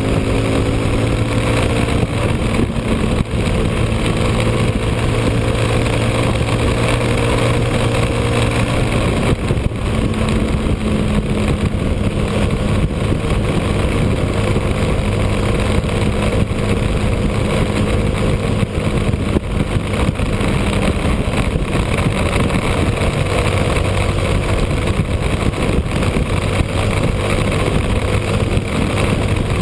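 Motorcycle engine running steadily at highway cruising speed, its note shifting slightly about a third of the way in, under heavy wind rush on the camera's microphone.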